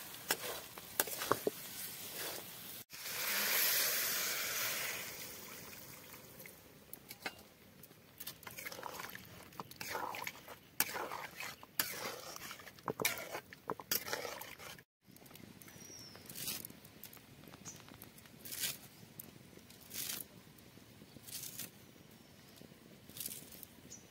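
Metal spatula scraping and clicking against a wok of frying egg-paneer masala. About three seconds in, a burst of sizzling starts and fades over a few seconds as liquid meets the hot pan. After that come scattered light clicks and taps of utensils against the pan.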